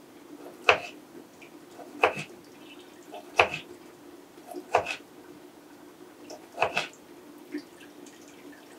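Kitchen knife slicing through a slab of salo and knocking down onto a wooden cutting board, a sharp knock about every second and a half, over a faint steady hum.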